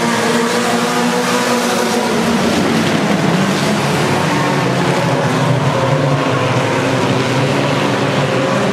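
Several sport compact race cars' four-cylinder engines running together, a steady, loud drone of overlapping engine notes.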